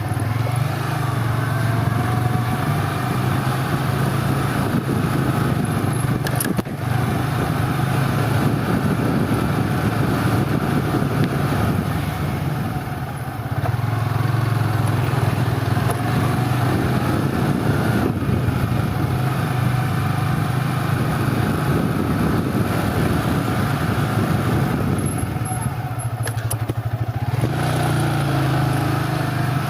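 A motor vehicle's engine running steadily, a constant low drone with road and wind noise, easing off briefly about 13 seconds in and again near the end.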